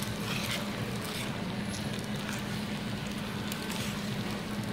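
Restaurant room tone: a steady low hum under an even background noise.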